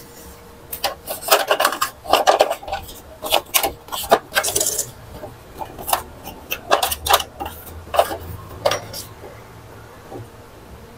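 Plastic parts in the paper-feed area of an Epson L121 printer clicking, knocking and scraping as a part is worked back into place by hand. The handling stops about nine seconds in.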